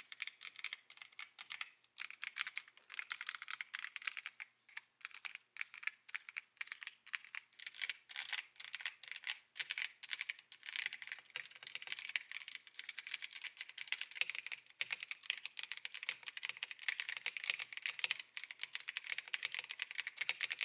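Continuous fast typing on a MageGee Sky 98 full-size, hot-swappable mechanical keyboard, giving a dense, irregular clatter of key clicks.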